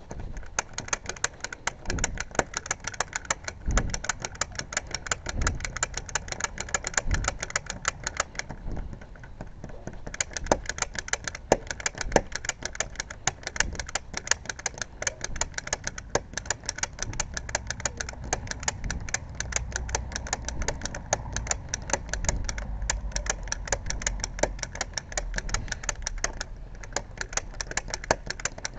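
Lock picks working the pin tumblers of a locked house door lock, a rapid, steady clicking as the pins are raked, with a few dull low knocks in the first several seconds.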